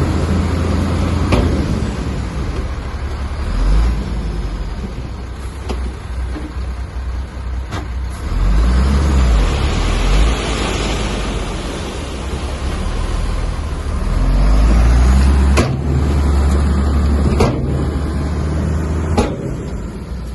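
Diesel engine of a heavy earthmoving machine at work, likely the bulldozer. The engine runs with a low rumble and swells under load several times. Sharp metallic knocks come every couple of seconds.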